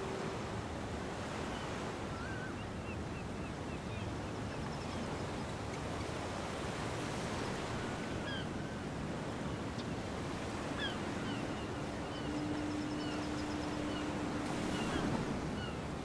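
Beach ambience: ocean waves washing on the shore with wind, scattered short high chirps throughout, and a long steady low tone held for several seconds starting about ten seconds in.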